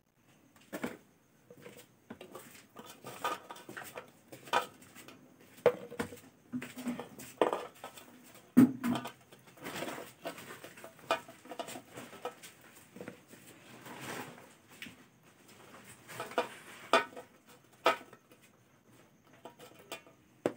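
Irregular light knocks, clinks and rustles of baked litti being broken open, dipped into a small steel bowl of ghee and set down on a plastic plate. The loudest knock comes a little before the middle.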